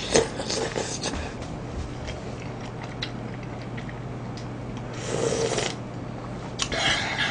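Slurping hot pork-gukbap broth straight from a small bowl: a few noisy slurps, the longest and loudest about five seconds in, with small clicks of eating in between.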